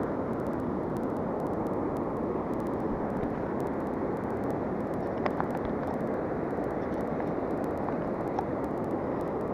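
Steady rush of a fast river running over a shallow riffle, with a couple of faint clicks late on.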